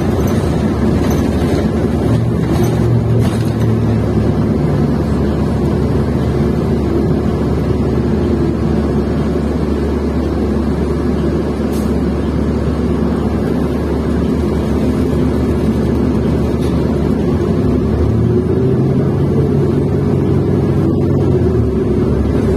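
New Flyer XN40 transit bus under way, its Cummins Westport ISL-G natural-gas engine running steadily over road noise. A stronger low engine hum comes in twice: about two seconds in, and again from about eighteen seconds.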